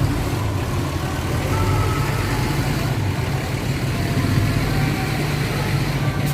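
Diesel engine of a large intercity bus idling steadily with a low drone.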